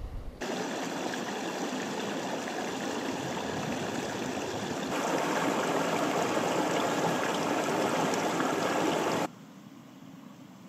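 Mountain stream running and splashing over boulders in small cascades, a steady rush of water that gets louder about halfway through. It cuts off abruptly near the end, leaving only a faint hiss.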